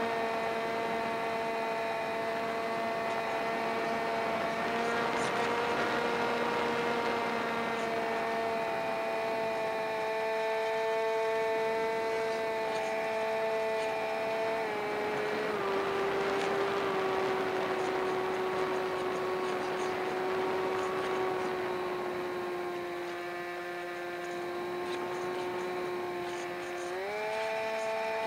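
Electric motor and propeller of an Easystar RC plane running with a steady whine over rushing wind, heard close up from under the wing. The pitch drops a step about halfway through and climbs back up near the end.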